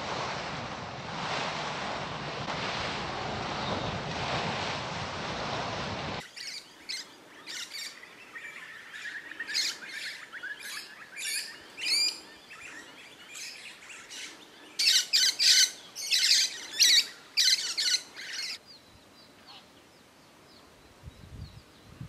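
Surf washing over a rocky shore with wind on the microphone, then an abrupt change to lorikeets screeching: a run of shrill, repeated calls, loudest in a quick flurry past the middle, then fading to a few faint calls.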